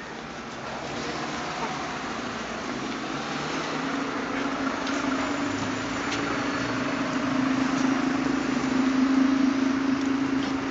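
A motor vehicle's engine hum growing steadily louder over several seconds and peaking near the end, heard from the street.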